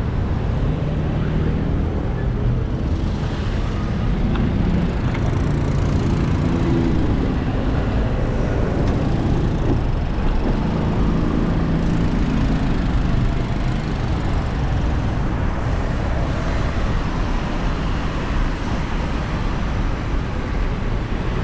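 Road traffic: a steady rumble of vehicles, with engine hum that comes and goes.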